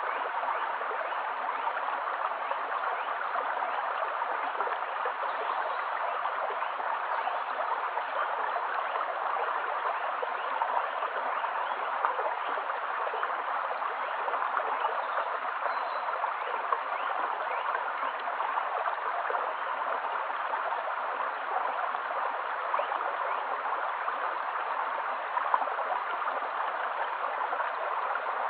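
Shallow stream running over stones: a steady rush of water flecked with many small splashes.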